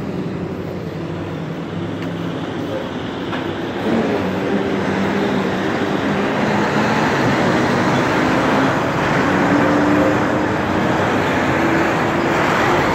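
Street traffic with tractor-trailers passing close by: diesel engines running and tyre noise, louder from about four seconds in.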